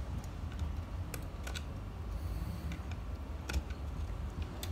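Screwdriver unscrewing the black carbon-brush holders on a core drill's motor housing, a handful of sharp, irregular clicks from the tool on the parts over a steady low hum.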